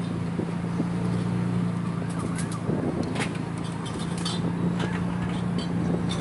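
Pickup truck towing a trailered jon boat on the road: a steady engine and road hum with a few scattered rattles and knocks from the boat and its gear bouncing on the trailer.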